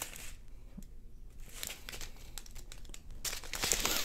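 Clear plastic bags of diamond-painting drills crinkling as they are handled and set down on a table. The crinkling is soft at first and louder near the end.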